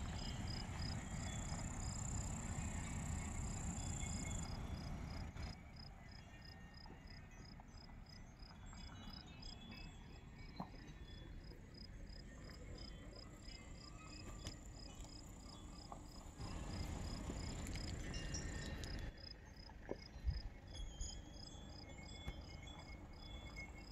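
Meadow insects chirping: a steady run of evenly spaced high chirps, about three a second, with a higher continuous trill over them for the first few seconds. Wind rumbles on the microphone at the start and again from about 17 to 19 seconds in.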